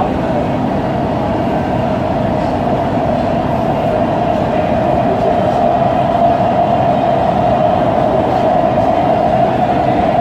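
Breda A650 subway car running at speed through a tunnel, heard from inside the car: a steady, loud rumble with a steady tone above it.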